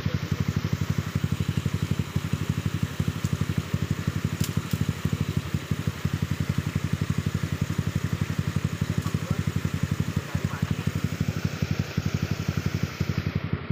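Trail dirt bike engine idling steadily with an even, rapid pulse, the bike held in place on a muddy stream crossing.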